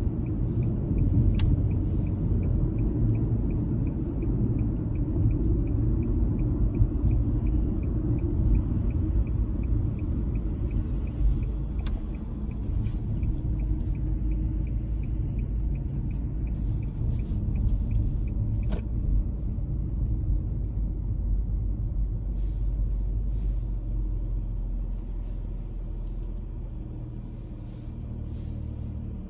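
A car driving, with a steady low rumble of road and engine noise that eases slightly near the end. A faint, regular ticking runs for the first two-thirds and then stops.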